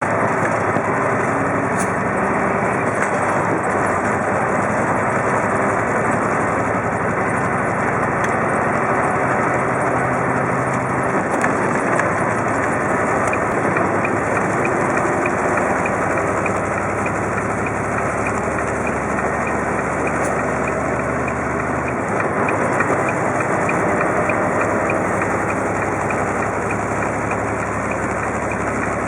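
Heavy truck engine running steadily, with its pitch shifting a few times.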